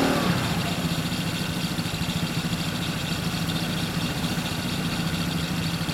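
Yamaha Cygnus-X 125 cc single-cylinder scooter engine idling through a full-titanium Windjammers exhaust, the revs dropping in the first half-second and then holding a steady idle.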